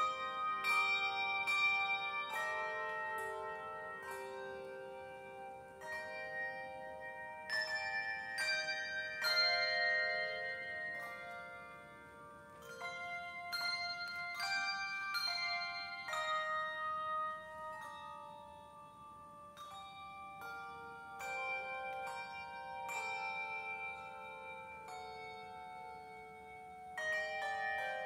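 A handbell quartet playing a piece: brass handbells rung in overlapping notes and chords, each note ringing on and slowly fading, the music swelling and softening by turns.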